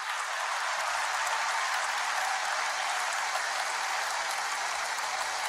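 Congregation applauding, a dense, steady ovation.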